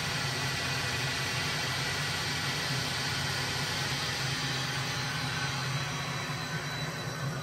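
Servo-driven spindle of a small retrofitted CNC lathe running steadily at about 1800 rpm: an even mechanical whir with a faint high whine, easing off a little near the end. The acceleration and deceleration are very slow because the servo drive has not been tuned yet.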